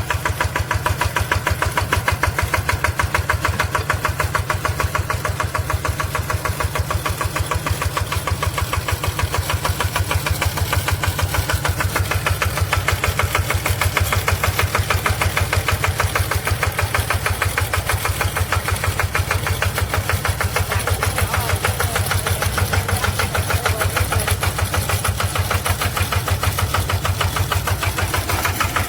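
Small engine on a farmer-built rice-spraying machine running steadily, with rapid, even firing pulses; it runs smoothly.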